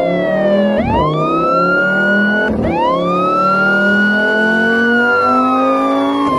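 Siren-like wailing tone, sweeping up sharply twice and then falling slowly, over background music with low notes that step in pitch.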